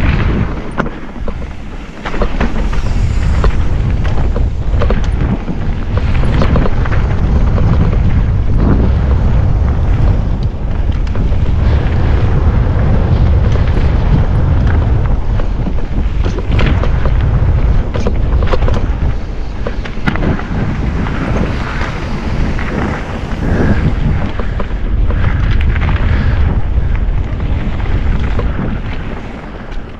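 Wind buffeting a GoPro's microphone on a fast mountain-bike descent, a heavy steady rumble, with the bike clattering and knocking over rough trail ground. The rumble eases briefly about two seconds in and again near the end.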